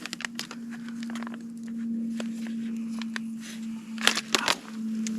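A spork stirring food in a crinkly resealable meal pouch: scattered scrapes, clicks and rustles, with a louder cluster about four seconds in, over a steady low hum.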